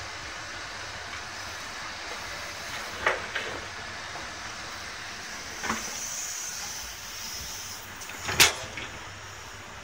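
Crawler hydraulic excavator running steadily as it loads soil into a dump truck, with sharp knocks about three seconds in, a smaller one a little before six seconds, and the loudest about eight and a half seconds in, plus a brief high hiss around six seconds.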